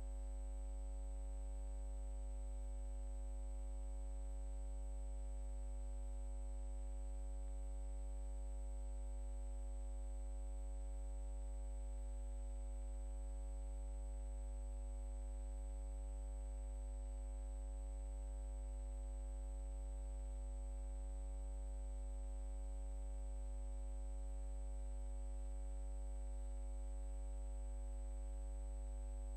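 A steady, unchanging hum made of several fixed pitches, with a faint high whine above it.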